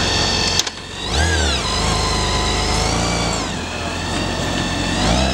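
BMW K1600GTL's inline-six engine running and revved twice: a rise and fall in pitch about a second in, and again near the end.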